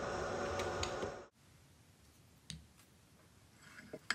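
Milling machine spindle running with the end mill lifted clear of the workpiece, cutting off abruptly about a second in. Then a few faint clicks and taps of metal handling at a bench vise, the sharpest near the end.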